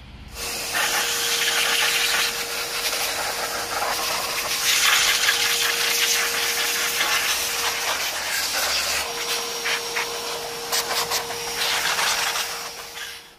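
Electric air-cleaning hose (vacuum or blower) rushing air with a steady motor whine as its nozzle is run over a dusty mixer chassis, with light ticks of grit and debris near the end. It starts about half a second in and cuts off sharply near the end.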